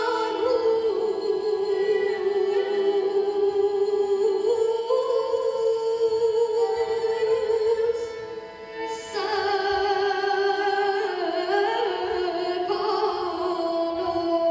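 A boy singing a slow Armenian song into a microphone in long, wavering held notes over a steady instrumental drone. He breaks off for a breath about eight seconds in, then comes back in on a higher, louder note.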